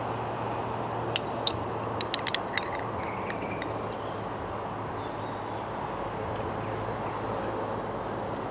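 Metal spoon clinking against a small glass bowl several times as it scoops grilled corn kernels, a cluster of sharp clinks over about two and a half seconds. Steady background noise runs underneath.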